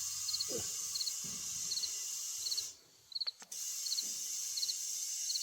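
A cricket chirping, short triple-pulsed chirps repeating evenly about every three-quarters of a second, over a steady high hiss that drops out for about a second midway.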